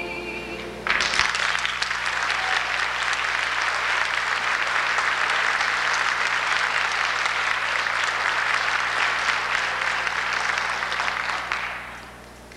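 A woman's final held sung note, wavering with vibrato, ends within the first second, and audience applause breaks out at once. The clapping stays steady for about ten seconds and dies away near the end.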